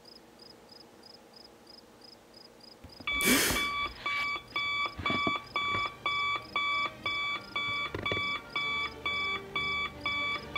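Digital alarm clock beeping, about two even beeps a second, starting suddenly about three seconds in with a short loud burst of noise just as it begins. Before it, only faint high ticking.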